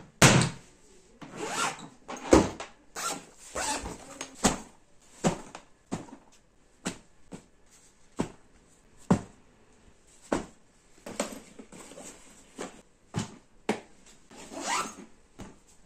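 Hard-shell trolley suitcase being handled and packed: zips run open, knocks and clicks of the plastic shell and handle, and rustling of clothes and the lid's fabric lining, in irregular bursts.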